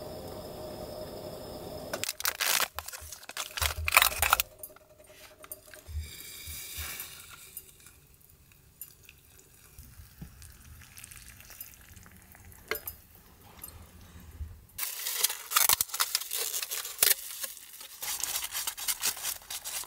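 A gas burner hissing steadily, then dishing-up noises: a plastic rice paddle knocking against bowls, hot water poured into a stainless cup of miso, and near the end quick clicking of chopsticks stirring natto in plastic tubs.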